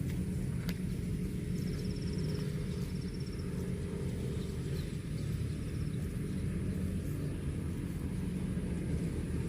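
Steady low rumble, with faint rapid high ticking about two to three seconds in.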